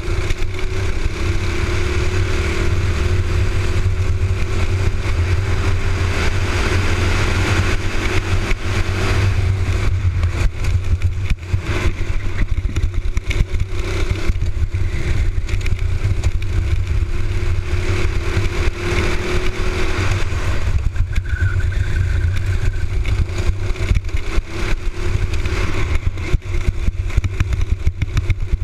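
Honda kart engine at race speed heard from on board the kart, its pitch climbing on the straights and falling away into the corners several times. Heavy wind rumble on the microphone runs underneath.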